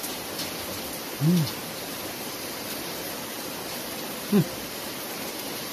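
Steady hiss of rain falling, with a man giving two short, rising-and-falling 'mmm' hums as he chews, about a second in and again after four seconds.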